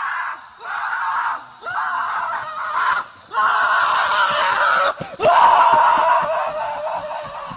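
A horse giving loud, scream-like cries in five bursts of about a second each, one after another, the last trailing off.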